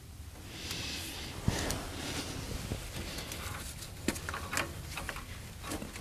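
Hydraulic hoses and quick-connect fittings being handled: soft rubbing of hose with a few light clicks and taps of metal fittings.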